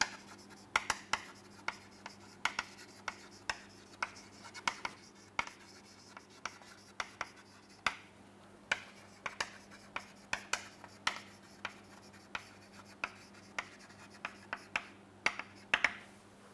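Chalk writing on a chalkboard: an irregular run of short taps and scratchy strokes, about one or two a second, as a line of words is written out.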